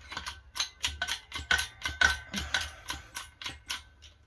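Rapid, evenly spaced metallic clicks, about four a second, with a faint ringing note, as a new wheel bearing is being pressed into a VW Golf Mk3 wheel hub carrier.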